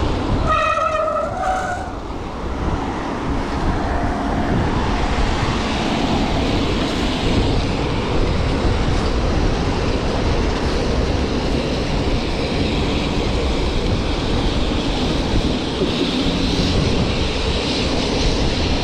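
Steady, loud rush of wind buffeting a bike-mounted action camera's microphone, with bicycle tyres on a wet road, during a ride in wind and rain. A brief high-pitched squeal sounds about a second in.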